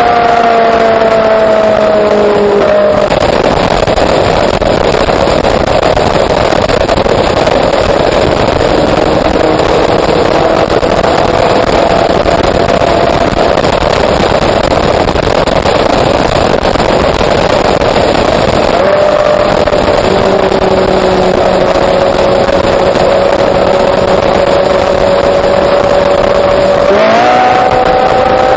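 Ferrari 458 Spider's V8 engine at speed: its note falls as the car comes off the throttle, is buried under a loud rushing noise for a long stretch, returns as a steady high-pitched tone, and sweeps up sharply near the end as the car accelerates hard.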